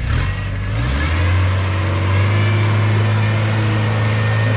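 Four-wheel-drive truck's engine revving up in the first second, then held at steady revs under load as the truck climbs, with a strong low drone.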